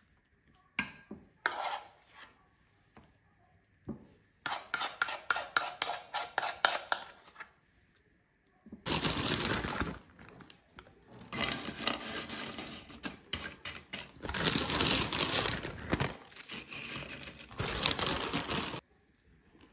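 A metal spoon clicking and scraping against a ceramic dish as guacamole is spooned in, with a quick run of taps between about four and seven seconds. From about nine seconds there is long rustling and crinkling of tortilla chips being handled and laid out, which stops just before the end.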